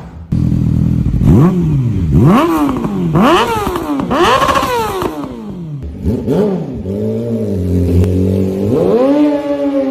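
Yamaha R6 sport bike's inline-four engine being free-revved through its exhaust: about five sharp throttle blips roughly a second apart, each rising and falling back. Then it settles at a lower steady rev, and rises to a held higher rev near the end.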